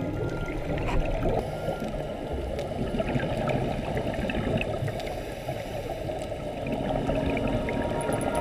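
Underwater ambience picked up by a diver's camera below the surface: a steady, muffled water noise with faint, scattered short clicks.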